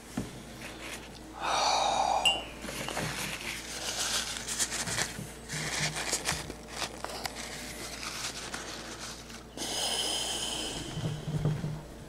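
A paper towel rustling and crinkling as it is handled close to the microphone, with a person's heavy breaths.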